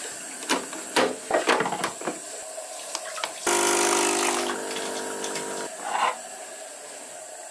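Clicks and knocks as the lever of a De'Longhi Nespresso capsule coffee machine is lifted and closed on a capsule. About three and a half seconds in, the machine's pump buzzes steadily for about two seconds while coffee brews into a mug, then stops. A short knock follows as the mug is handled.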